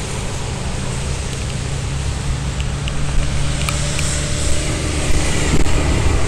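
Wind and rain noise buffeting a body camera's microphone beside an interstate, over a steady low rumble and hum of highway traffic, with a few sharp ticks about halfway through.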